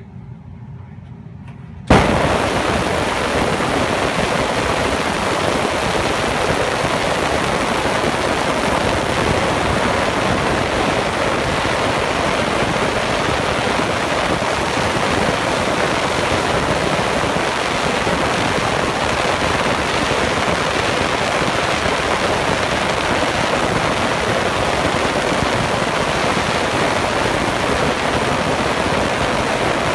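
Ultrasonic cleaning tank switching on about two seconds in, then a steady loud hiss of the bath working on a submerged French horn and its slides.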